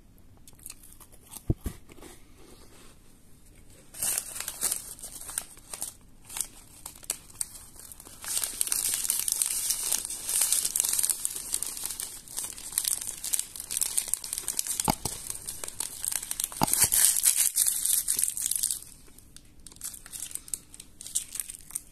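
Foil-lined plastic biscuit wrapper crinkling and tearing as it is handled and opened. The crinkling starts about four seconds in, grows loud and dense, and stops near the end, with a few sharp clicks along the way.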